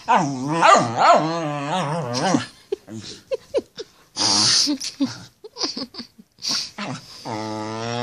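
Small wire-haired terrier vocalizing in play: wavering growl-whines for the first two seconds or so, then short snuffles and a huff about four seconds in, and a steady growl again near the end.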